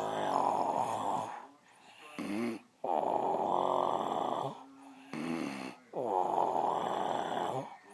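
A woman snoring in her sleep: three long, loud snores about three seconds apart, with softer pitched breaths between them.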